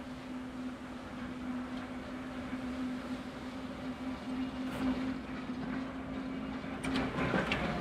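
Diesel shunter's engine running with a steady hum as the locomotive draws its coaches slowly forward. Near the end, a few sharp clicks come from the wheels crossing rail joints and pointwork.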